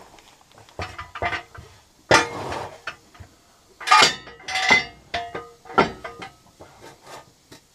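Steel jack stand being set in place and its ratchet post adjusted: a series of sharp metal clanks and clinks with a brief ring. The loudest come about two and four seconds in, and lighter clinks follow.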